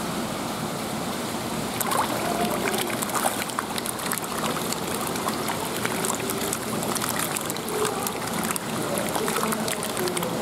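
Small Japanese horse mackerel (aji) swarming at the surface and snapping at mysid shrimp bait, making a rapid, irregular splashing and smacking. The splashes start about two seconds in and keep coming thickly after that.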